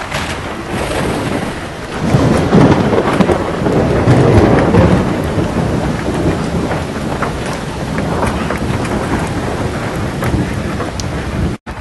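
Storm-force wind and driven rain buffeting a phone microphone: a loud, unbroken rush of noise with a deep rumble, strongest from about two to five seconds in. The sound drops out for an instant just before the end.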